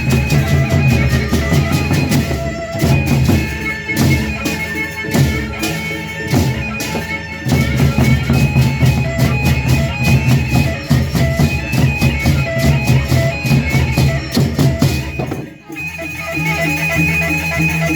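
Band music: driving drumming with a reedy lead melody over it. There is a brief break about three-quarters of the way through, then the band comes back in with a steadier pattern.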